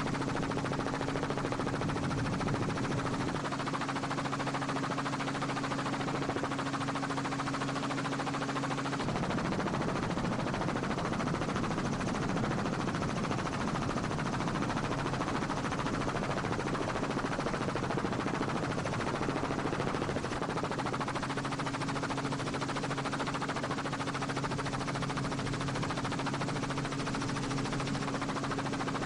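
Steady helicopter engine and rotor noise with a low hum. The hum fades out about nine seconds in and comes back around twenty-one seconds.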